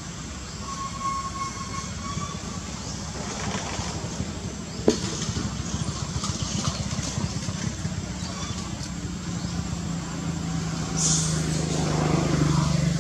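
Steady low rumble of a motor vehicle engine, its drone growing louder over the last few seconds, with a single sharp click about five seconds in.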